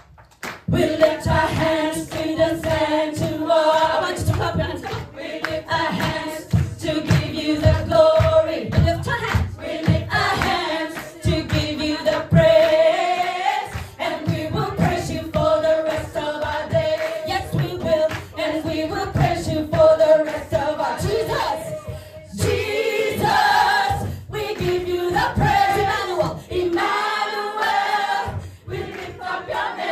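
Gospel choir singing a praise song with a lead singer on microphone through the PA, over band accompaniment with a steady beat.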